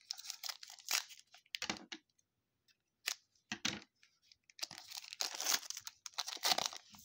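Foil wrapper of a trading-card pack crinkling and tearing open. It comes in short bursts, then a near-quiet pause, then a longer stretch of crinkling in the second half.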